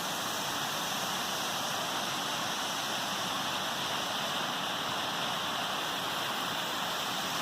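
A waterfall rushing steadily, a constant even roar of falling water.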